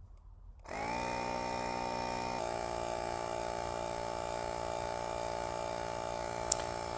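Portable electric tire pump starts up about a second in and runs steadily, inflating the tire at low pressure so the bead seats in the rim. Its hum drops slightly in pitch a couple of seconds after starting.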